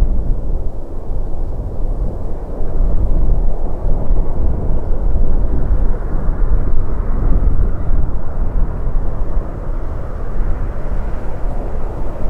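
Jet airliner engines heard from outside, a loud, low, steady rumble.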